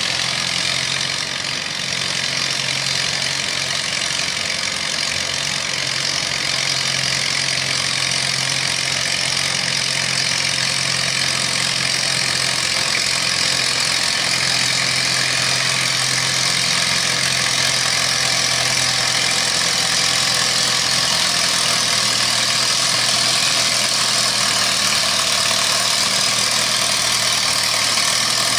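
Minneapolis-Moline classic pulling tractor's engine running steadily at low speed, with no revving.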